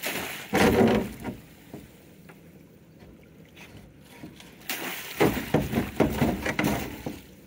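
Water splashing and pouring through the mesh of a hoop net as it is worked up and down at the side of a boat, in two spells: a short one about half a second in and a longer one from about five seconds in.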